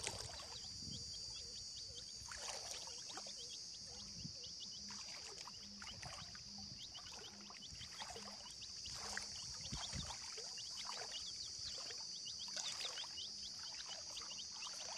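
Baby chicks peeping over and over in short, falling peeps, over a steady high insect drone, with water sloshing and splashing now and then.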